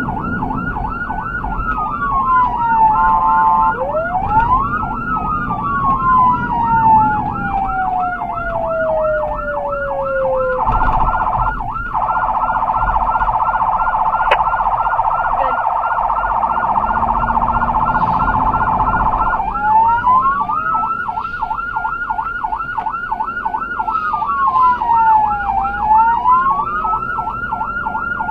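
Emergency vehicle's electronic siren running a fast yelp with a few slow falling sweeps near the start. About ten seconds in, it gives way to a steady horn blast of about nine seconds, then the yelp resumes. Heard from inside the responding vehicle.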